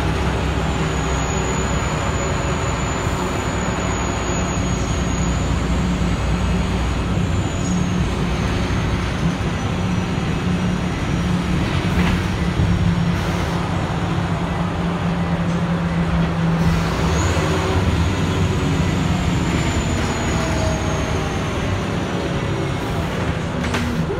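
Scania L94IB bus's diesel engine droning steadily, heard from inside the cabin, mixed with tyre and road noise. A faint high whine drifts slowly in pitch, and a couple of short knocks come through, one about halfway and one near the end.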